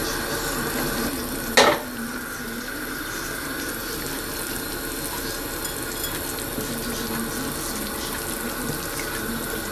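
A stainless steel pot of soup bubbling at a full boil on the stove, making a steady bubbling hiss. One short, sharp knock sounds about a second and a half in.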